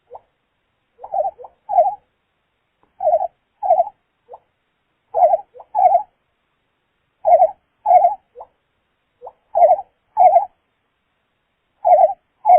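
Quail calls standing in for a reconstructed Avimimus portentosus call. A three-note phrase, a soft short note and then two loud ones, repeats six times about two seconds apart.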